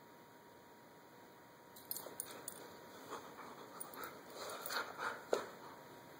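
Two dogs mouthing each other in play, making short, soft whines and grumbles in an uneven run starting about two seconds in, with one louder, sharper sound just after five seconds.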